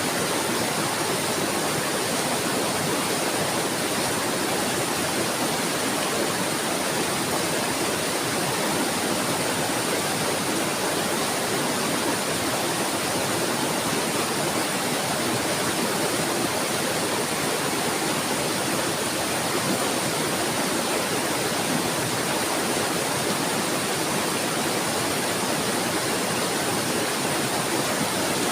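Steady rushing of flowing water, an even babbling with no change in level and no bird calls.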